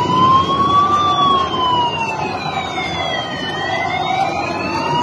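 Emergency-vehicle siren wailing in slow rises and falls: it climbs to a peak about a second in, falls for a couple of seconds, then climbs again. Beneath it runs a steady haze of crowd and street noise.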